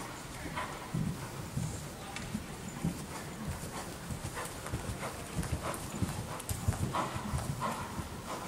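Hoofbeats of a horse trotting on soft indoor arena footing: dull, regular thuds at about two to three a second.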